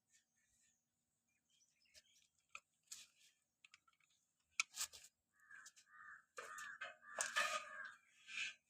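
Faint bird calls, several harsh calls about two-thirds of the way through, among scattered light clicks and taps.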